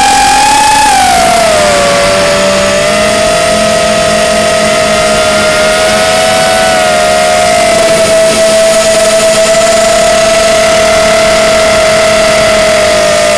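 Racing quadcopter's four Cobra 2204 2300kv brushless motors spinning DalProp 5040 three-blade props, heard close from a camera mounted on the quad: a steady high whine. The pitch rises a little at first, dips about a second and a half in, then holds level.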